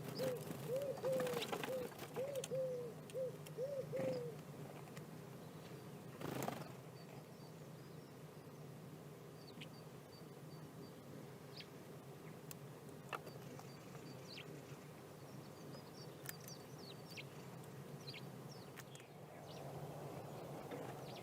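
A bird calls in a quick run of about ten short, low, arched notes over the first four seconds. A sharp knock follows about six and a half seconds in, then faint high chirps and light ticks.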